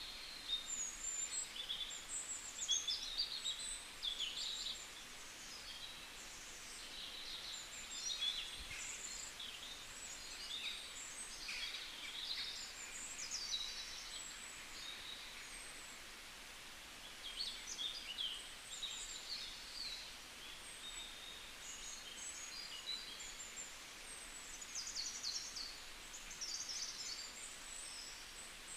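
Birds chirping and twittering, many short high calls overlapping throughout, over a faint steady hiss.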